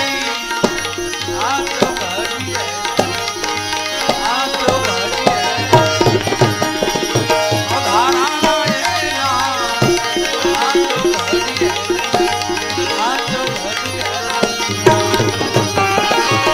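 Gujarati devotional bhajan music: tabla drumming in a steady rhythm under a melody with gliding, ornamented notes.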